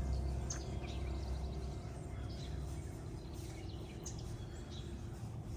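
Outdoor ambience of scattered short bird chirps over a steady low background rumble, with the tail of a music chord fading out at the very start.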